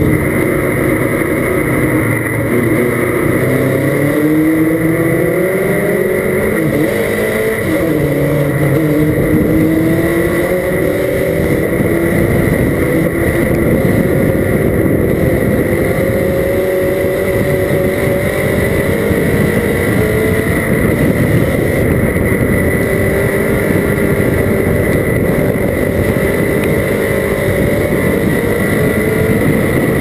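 Dirt-track stock car's engine running, heard from inside the cockpit, climbing in pitch over the first several seconds and then holding a fairly even pace as the car rolls along the track. A steady high whine runs alongside it.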